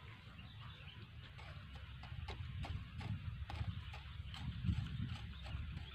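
Wangkil, a small traditional hand weeding hoe, scraping and chopping into dry soil and weeds between rice plants: a faint run of irregular clicks and scrapes.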